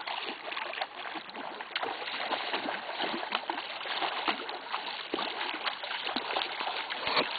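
Hooked piranha thrashing at the water's surface as it is reeled in, making quick, irregular splashes.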